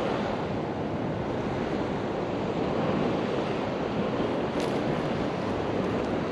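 Steady wash of ocean surf breaking on a beach, with wind buffeting the microphone.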